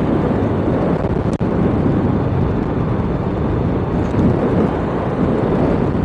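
Steady low rumble of a motorcycle ride at road speed: wind buffeting the microphone over the running bike, with one momentary drop-out about a second and a half in.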